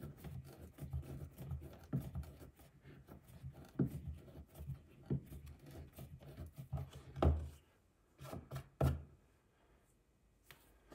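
Tapered body reamer being twisted by hand into a plastic RC truck body shell, scraping out a hole in short, repeated strokes. Two louder knocks come a little after seven and nine seconds in.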